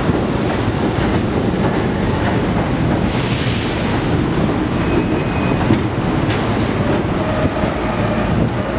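R32 subway train running past along the station platform: a steady rumble with wheels clacking over the rails, and a brief hiss about three seconds in.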